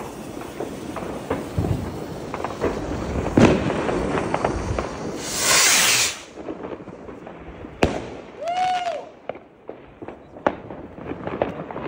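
Firework rocket from a Weco assortment launching out of a rack: a loud hissing whoosh for about a second as it climbs, then a sharp bang about two seconds later. Scattered pops and cracks of other fireworks sound throughout, and a short tone rises and falls just after the bang.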